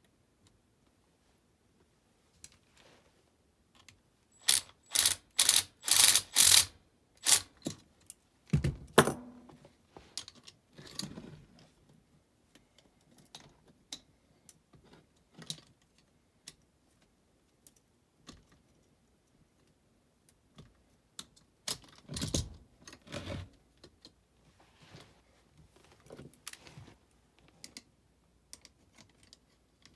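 Metal clinking and clanking as an ECM blower motor and its mounting bracket are handled and fastened. A quick run of sharp clinks comes about five seconds in, a heavier clank near nine seconds and another about twenty-two seconds in, with light ticks between.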